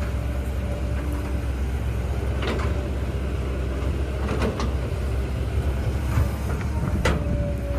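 Excavator diesel engine and hydraulics running steadily, with a low drone and a faint steady whine, broken by three sharp metallic clanks about two and a half, four and a half and seven seconds in.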